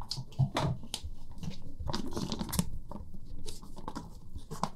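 Irregular crackling and rustling from handling a blood pressure cuff over a paper exam drape, with a few sharp crackles that may be the cuff's Velcro.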